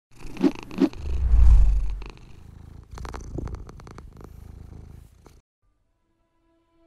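A cat purring, loudest about a second in, with two short sharp sounds just before it and a run of clicks after. It stops about five and a half seconds in.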